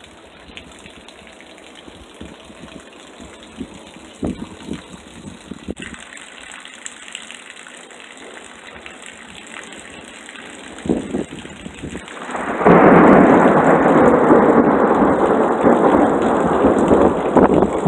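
Thunderstorm: rain falling with a few short low rumbles. About twelve seconds in, a sudden loud crash of thunder rolls on without dying away.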